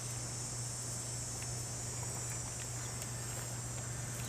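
Insects chirring steadily in a high-pitched band, with a low steady hum underneath.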